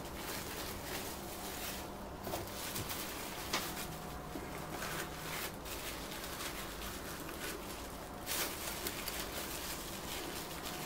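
Plastic cling film crinkling and rustling softly as it is rolled tightly around a log of minced meat.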